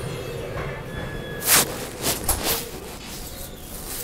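Handling noise from a phone pressed against clothing: a loud rubbing scrape about a second and a half in and a quick run of three more just after two seconds, over a low steady background rumble.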